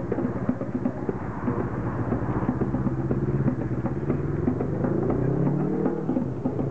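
A motorcycle engine running with a steady tone, then revving up about five seconds in and easing back down, over ongoing hand-drum percussion.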